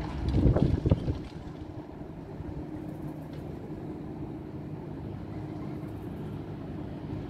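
Heavy rumbling for about the first second, then a steady low engine hum.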